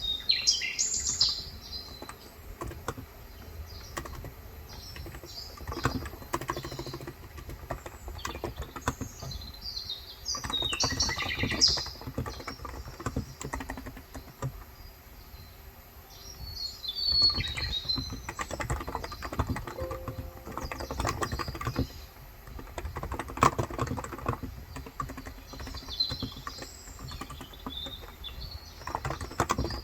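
Typing on a Cox Endeavour electro-capacitive keyboard with light 35 g keys, in bursts of rapid keystrokes with short pauses. Birds chirp several times in the background.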